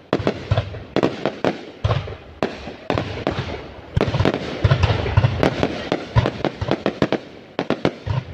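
Fireworks display: a rapid, irregular barrage of bangs and sharp cracks over continuous crackling, with heavier booms from shells bursting several times.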